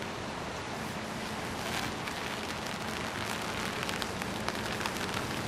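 Steady rain falling, with many separate drops ticking sharply on an umbrella overhead.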